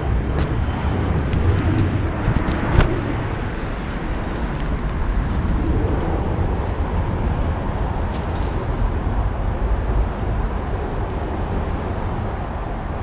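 Street traffic going by: a steady low rumble and hiss of passing cars, with a few small clicks and one sharp knock a little under three seconds in.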